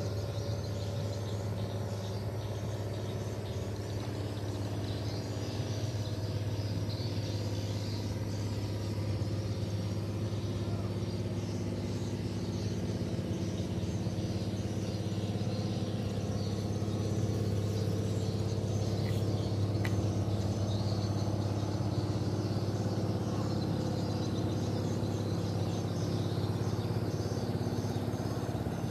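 A steady low motor hum that holds its pitch and swells slightly in the middle, with faint high chirping above it.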